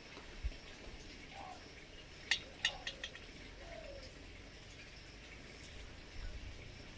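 Eggs being set one by one into a metal pot of water, with a few light clicks of shell against the pot a little after two seconds in.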